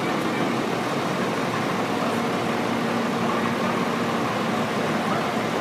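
Diesel pickup truck engine idling steadily, a constant drone with no revving.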